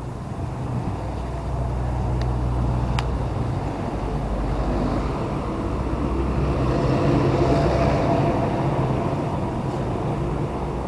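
A road vehicle driving past, its engine hum and tyre noise growing louder to a peak about seven or eight seconds in, then easing off. Two faint clicks come about two and three seconds in.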